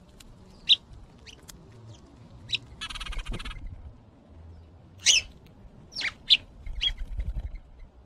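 House sparrows chirping in short, high single notes, about six scattered through, with a brief burst of splashing and wing-fluttering in the birdbath water about three seconds in.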